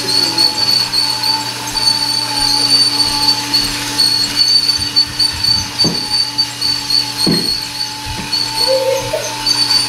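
Battery-powered toy train running around its track, its small electric motor giving a steady whine. A couple of short knocks sound in the middle.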